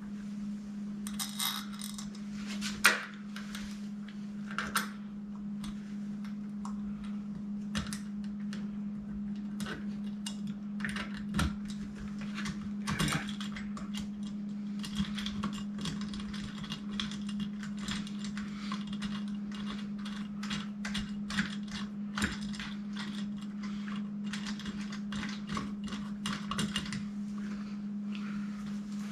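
Scattered small metallic clicks and taps of machine screws being fitted and turned in with a Phillips screwdriver through a smart deadbolt's mounting plate, over a steady low hum.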